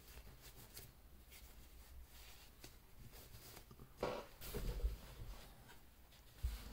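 Faint handling noise as a white-gloved hand brushes over the watch in its velvet-lined box: soft scattered clicks, then a louder stretch of rubbing with low bumps about four seconds in, and a short thump near the end.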